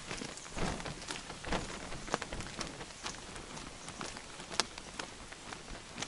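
Footsteps of a hiker walking on a wet paved road, about two steps a second, over a steady wet hiss, with one sharper tap a little before the end.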